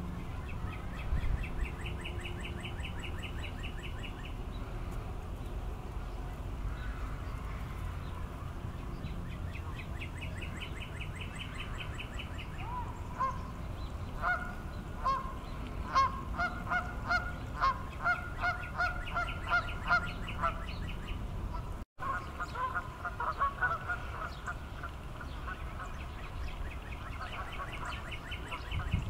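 Birds calling by the water: a high trilling song repeated at intervals, and from about halfway through a run of honking calls about two a second, typical of geese, over a steady low rumble.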